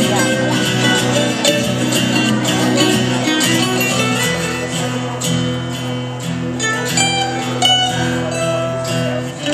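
Acoustic guitar played live: picked notes ringing over held low notes.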